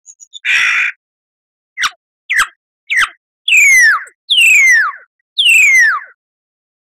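Lyrebird singing: a short harsh note, then three quick downward-swept notes followed by three longer clear whistles, each falling steeply in pitch.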